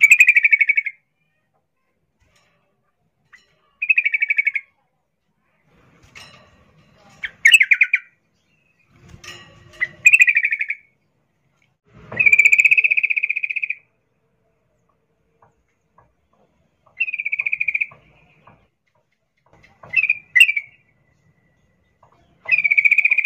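Female yellow-vented bulbul (trucukan) giving a series of harsh rattling calls, about eight in all, each a fraction of a second to nearly two seconds long with short silences between; the longest comes about twelve seconds in. This is the female's call to a male.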